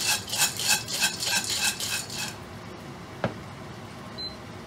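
A lidded pot of unpopped popcorn kernels being shaken back and forth on a stovetop hob, the kernels and lid rattling about four times a second. The shaking stops a little over two seconds in, and a single knock follows about a second later.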